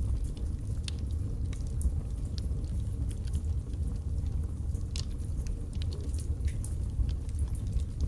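Logs burning in a fireplace: a steady low rumble of flame with frequent, irregular crackles and pops from the wood, the sharpest pop about five seconds in.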